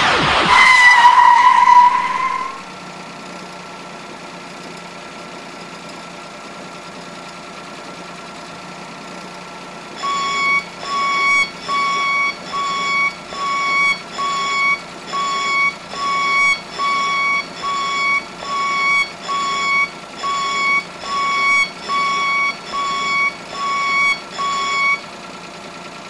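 DeLorean time-machine sound effects: a loud electronic whine that rises slightly and dies away within the first two seconds, then a steady low hum. About ten seconds in, a repeating electronic beep starts, a little over once a second, and stops about a second before the end.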